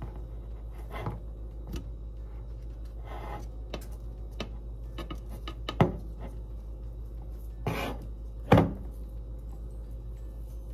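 Kitchen handling sounds as refrigerated cinnamon rolls are separated and set in a baking pan: scattered light clicks and rustles, with two sharper knocks about six and eight and a half seconds in, over a steady low hum.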